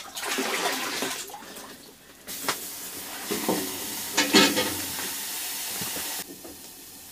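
Water being scooped out of an ice-fishing hole with a small pot and poured: a short splash at first, then a longer rushing pour lasting about four seconds, with a few knocks of the pot.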